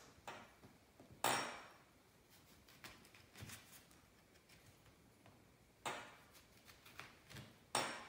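A kitchen knife slicing a lemon on a cutting board: three sharp knocks of the blade striking the board, the loudest about a second in and two more near the end, with fainter taps between.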